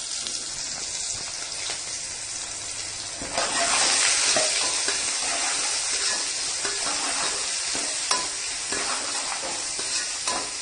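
Chopped onions sizzling in hot oil and ghee, the sizzle growing louder about three seconds in, while a spoon stirs them with a few light clicks against the metal pot.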